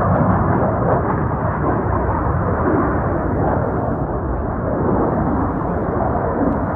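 Engine noise of two military jets flying overhead in formation: a loud, steady rumble.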